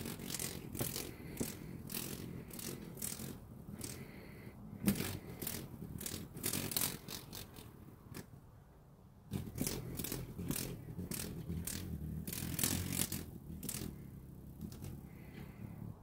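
Irregular rustling and scraping: a quick, uneven run of short scrapes over a low rumble, easing off briefly about eight seconds in.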